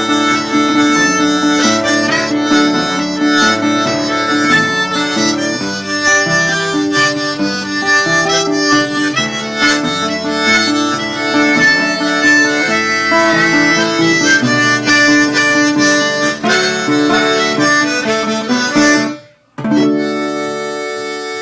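Diatonic harmonica played in Cajun style, mimicking a Cajun accordion with chordal melody, over guitar accompaniment. About 19 s in the music stops for a moment, then a final held chord sounds and slowly fades.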